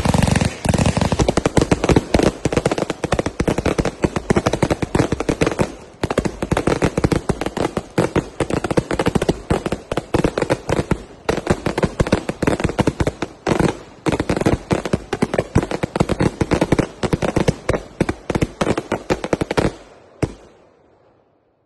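Enforcer 300-shot bang firework cake firing, a rapid continuous stream of launches and bangs with a few brief gaps. It stops about twenty seconds in, with one last burst before it dies away.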